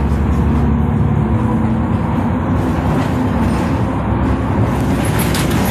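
Inside a moving city bus: the engine running under a steady noise of tyres and road, its pitch shifting as the bus drives on, with a few sharp rattles near the end.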